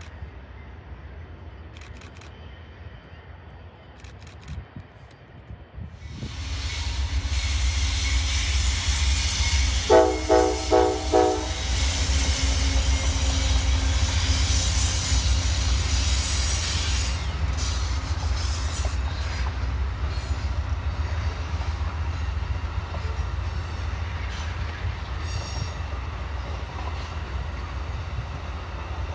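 An Amtrak passenger train passes close by. About six seconds in, a loud steady rumble of the locomotive and wheels on rail begins, and the locomotive horn sounds a few short blasts a few seconds later. After that, the bi-level Superliner cars roll by with steady clickety-clack wheel noise.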